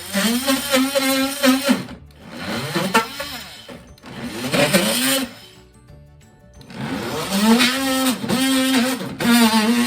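Oscillating multi-tool cutting through an old timber weatherboard in four bursts, its steady buzz sagging in pitch as each burst starts and stops.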